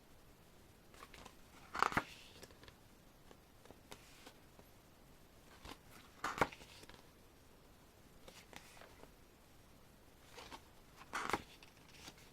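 Pages of a glossy album photo book being turned by hand: three brief paper swishes a few seconds apart, with light clicks and rustles of handling between them.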